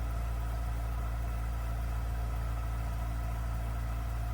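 3D-printed flat lap machine's electric motor running with a steady, even hum.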